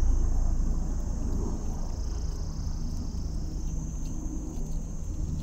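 Wind rumbling on the microphone, with a steady high chirring of insects.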